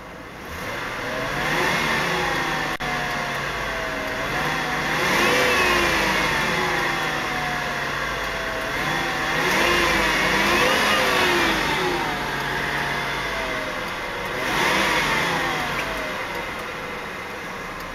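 The 4.6-litre V8 of a 2000 Lincoln Town Car is revved in park several times. Each blip rises and then falls back to idle, and the biggest rises come about five, ten and fifteen seconds in.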